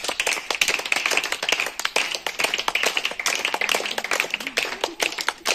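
A group of women clapping irregularly, many quick claps overlapping, with several women's voices chattering in the background.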